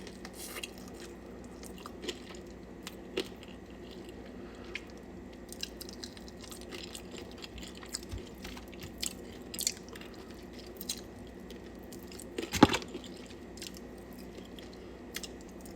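Close-up chewing and biting into chicken wings: scattered small crunches and mouth clicks, with one louder crunch about three-quarters of the way through.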